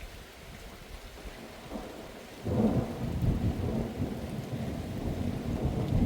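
Rain falling steadily, then a deep rumble of thunder that starts suddenly about two and a half seconds in and keeps rolling.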